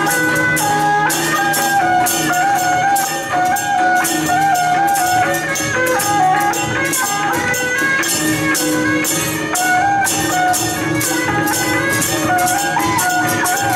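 Traditional temple-procession music: a melody stepping between held notes over a steady low drone, with cymbals struck in a quick, even beat about three times a second.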